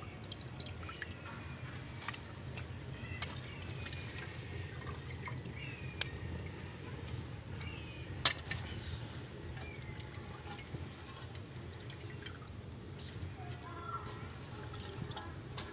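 Rice being tipped into a large aluminium pot of broth for pulao: soft splashing and dripping of liquid, with a few sharp knocks, the loudest about eight seconds in.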